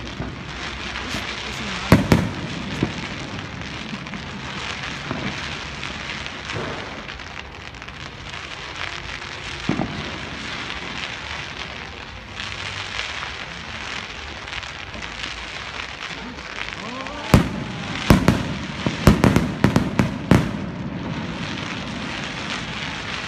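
Fireworks going off: scattered sharp bangs over a steady noisy wash, then a quick run of loud bangs starting about 17 seconds in and lasting some four seconds.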